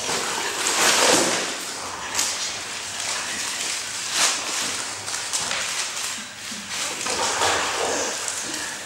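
A man's hoarse, breathy screams and animal-like cries in several harsh outbursts, the loudest about a second in and another around four seconds in.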